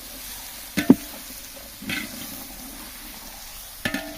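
Vegetables and spice masala frying in a large metal pot, sizzling steadily while being stirred with a ladle. The ladle clanks against the pot with a short metallic ring about a second in, again near two seconds, and once more near the end.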